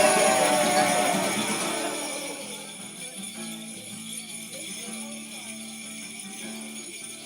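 Christmas-style music with jingle bells. A melody fades down over the first two seconds or so, leaving a quieter steady jingle shimmer over a held low note.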